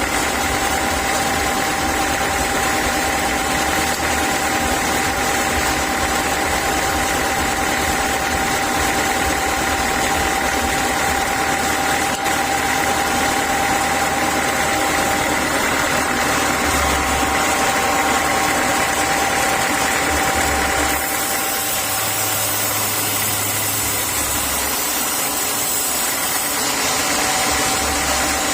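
Sawmill saw machinery running with a steady drone and a constant whine. About three quarters of the way through, the whine drops away and a higher hiss takes over for several seconds; the whine returns near the end.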